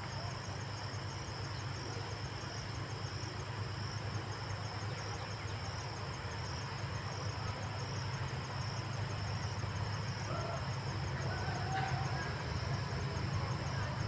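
A distant GE U20C diesel-electric locomotive approaching, heard as a low steady rumble that grows slowly louder. Insects trill steadily in a high pitch over it.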